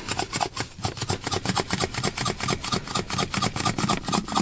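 Rapid, even rasping strokes, about seven a second, like a hand tool being worked quickly back and forth.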